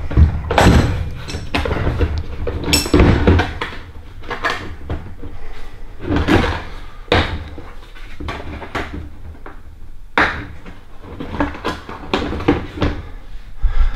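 Hard plastic torque-wrench cases being shifted and pulled out of a metal tool chest drawer: irregular knocks, clunks and scraping, loudest in the first few seconds and again twice later on.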